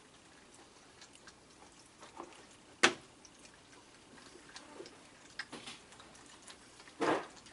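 Small clicks and taps from raccoons eating cookies and a man handling cookies in a cardboard box. One sharp click about three seconds in, and a short louder rustle about seven seconds in.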